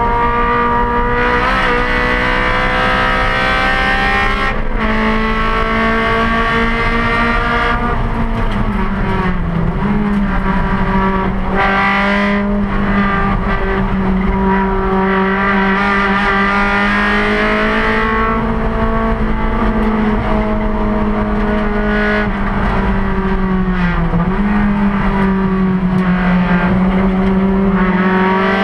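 Honda four-cylinder race car engine at high revs, heard from inside the caged, stripped cabin. Its pitch climbs and then drops sharply several times at gear changes, over steady road and wind noise.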